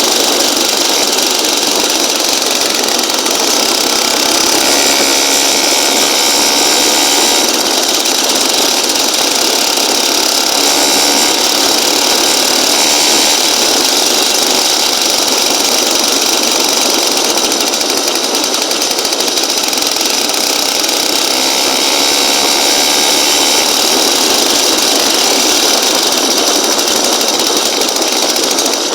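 Small engine of a motorized bicycle running loud and steady for the whole stretch, a high, chainsaw-like sound with no change in speed.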